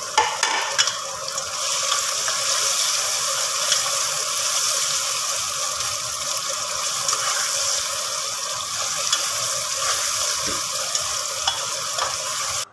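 Onions, tomatoes and green chillies sizzling steadily in hot oil in an aluminium pressure cooker, stirred with a spatula that ticks and scrapes against the pot now and then.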